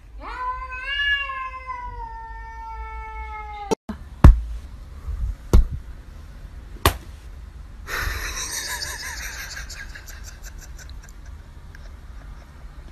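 A domestic cat gives one long meow that rises a little and then slowly falls, lasting about three and a half seconds. Then come three sharp knocks a second or so apart, the first the loudest, and from about eight seconds a steady hissing noise.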